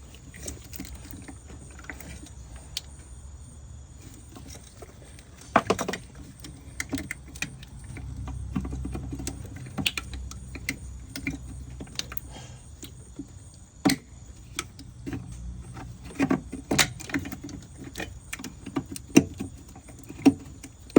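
Scattered sharp clicks, rattles and knocks of hands working plastic wiring-harness connectors on a car's engine computer (ECM), with a longer rattle about six seconds in.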